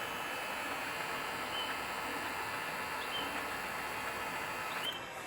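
C6232A metal lathe running steadily, its motor and gearing making an even mechanical noise with several faint steady tones; the noise eases off a little just before the end.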